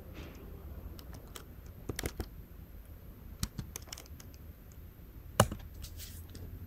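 Typing on a computer keyboard: irregular key clicks in short runs, with one louder key press about five and a half seconds in, the Enter key sending the command.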